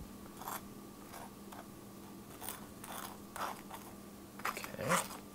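Table knife spreading mayonnaise on toasted sourdough bread: a series of short, dry scrapes of the blade over the crisp toast, the loudest near the end. A faint steady hum lies underneath.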